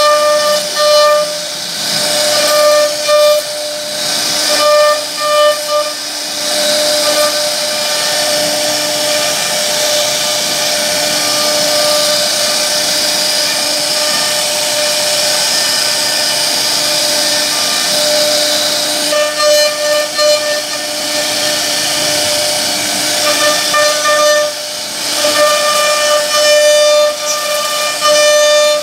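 CNC router spindle whining at high speed as its bit carves a relief pattern into wood, with the hissing rush of the cut. The high whine comes and goes in stretches, fading for several seconds in the middle while the hiss carries on.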